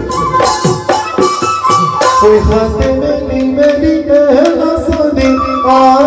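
Music: a melody over busy, steady percussion.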